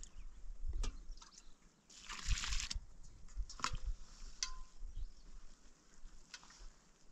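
Water poured from a small metal bowl into flour in a plastic basin, then hands mixing it into dough. There are a few sharp clicks, one with a brief ring, as the metal bowl knocks.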